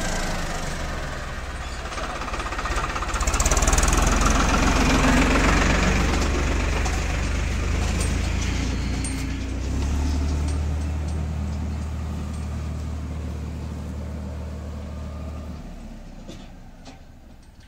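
Farmtrac diesel tractor engine running steadily as it hauls a trolley loaded with sugarcane past and away, the sound fading gradually over the last several seconds.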